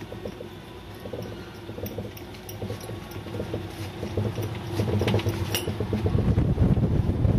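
Hand-cranked Maxant honey extractor spinning frames: a rapid ticking from the crank gearing over a low rumble of the turning basket. The rumble grows louder from about five seconds in as the spin builds.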